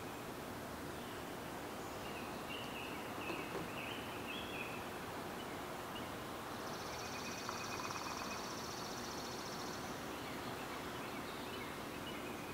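Outdoor woodland ambience with a steady background hiss and faint high bird calls. A few short chirps come in the first few seconds, then a high buzzy trill runs for about three seconds in the middle, with more short notes near the end.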